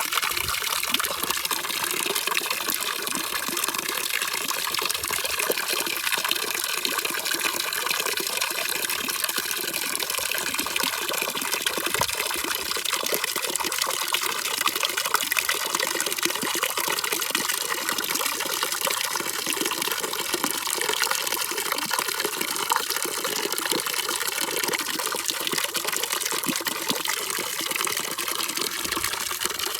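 Steady rushing, splashing water, an even unchanging noise used as white noise for sleep.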